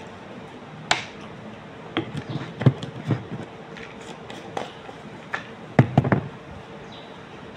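Irregular knocks and taps close to the microphone, objects being handled and set down, about a dozen over several seconds with the heaviest about three and six seconds in, over a faint steady hum.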